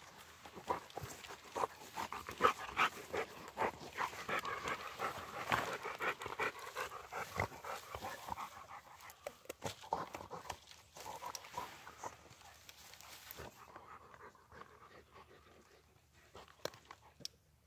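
Two Rottweilers panting as they mouth and tug a long dead branch through grass, with many sharp cracks and rustles from the wood and grass. The activity is busiest in the first half and grows quieter over the last few seconds.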